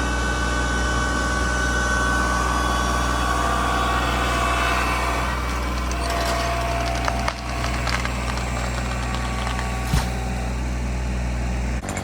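A tractor engine runs steadily while a pine trunk cracks and splinters under strain. The cracks come from about halfway on, with one sharp crack near the end.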